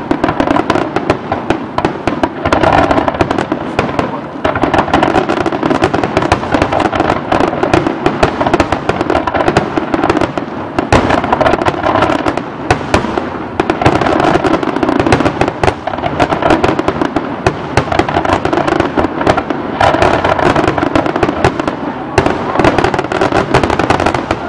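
Aerial fireworks display: a dense, continuous barrage of shell bursts and crackling, many reports overlapping with no pause, swelling and easing every few seconds.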